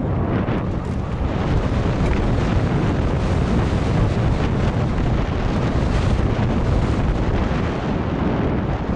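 Wind buffeting a helmet-mounted action camera's microphone over the steady rumble of a downhill mountain bike's tyres on a dirt track at speed, with small knocks and rattles from the bike throughout.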